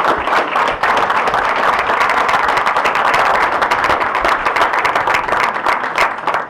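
Audience applauding, many people clapping together; the clapping swells at once and dies away near the end.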